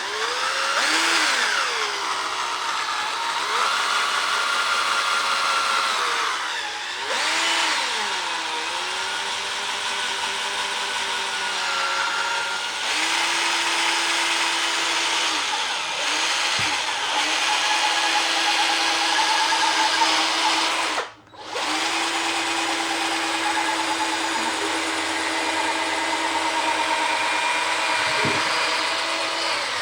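Electric polisher running with a buffing pad on a plastic headlight lens. Its motor whine bends up and down in pitch as the pad is pressed and worked, then holds steadier. It drops out briefly about two-thirds of the way through and picks up again.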